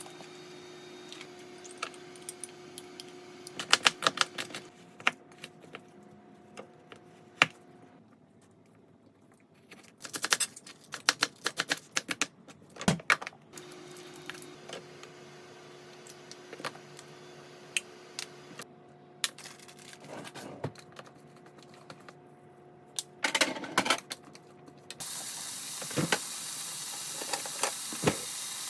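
Home kitchen cooking sounds: bursts of rapid tapping and clicking of food prep, such as a knife on a cutting board, over a faint steady hum. About 25 seconds in, a loud steady sizzle starts as food goes into a hot pan for a stir-fry.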